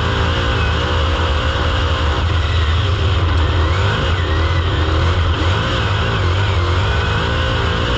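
Super Late Model dirt race car's V8 engine running hard at racing speed, heard close from a camera mounted on the car. The revs rise and fall repeatedly with the throttle through the corner, over a steady low rumble.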